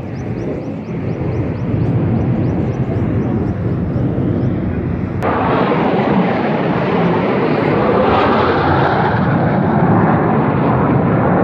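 Military jet aircraft flying past: a steady, loud jet roar that jumps abruptly to a louder, brighter roar about five seconds in.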